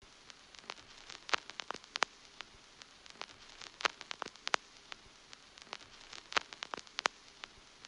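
Sparse crackling: sharp pops and clicks over a faint hiss, bunched into small clusters that come back about every two and a half seconds.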